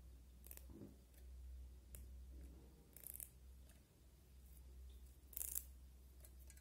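Faint rustling and a few brief crackles of curry leaves being plucked from their stems by hand, over a low steady hum.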